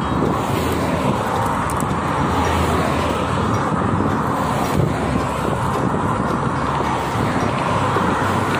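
Steady traffic noise from cars passing on a highway, heard from a bicycle riding along the shoulder, with wind rushing over the microphone.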